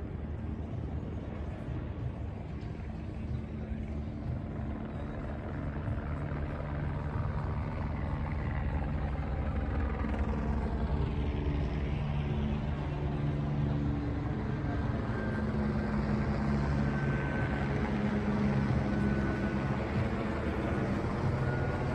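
Large engine running steadily with a low hum, getting gradually louder over the second half.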